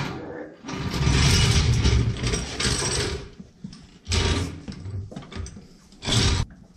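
Steel hydraulic floor jack rattling and clanking in several bursts on a concrete floor as it is moved into place and its handle worked. The longest stretch runs from just under a second in to about three seconds in, with shorter clanks after it.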